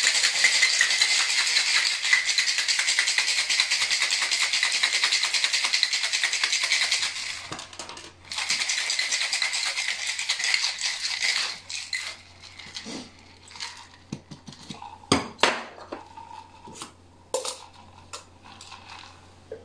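Ice rattling hard inside a metal cocktail shaker as a gin and dry vermouth martini is shaken, in two spells of about seven and three seconds with a short break between them. Then scattered metal clicks and knocks as the shaker is opened and a strainer fitted.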